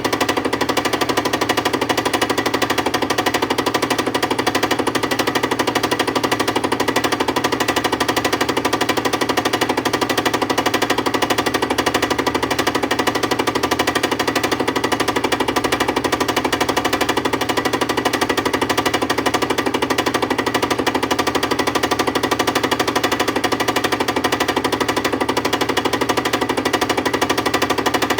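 Milling machine taking a facing cut across a machine part: a steady, rapid rattle of the cutter teeth biting the metal, even and unchanging throughout.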